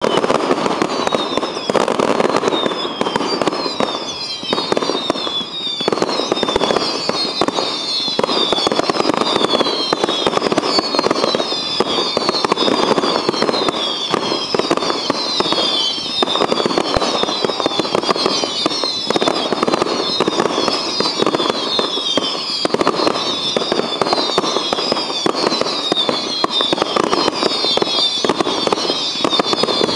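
Fireworks finale barrage: a dense, unbroken stream of bangs and crackling from many shells at once. Many short whistles falling in pitch run over it throughout.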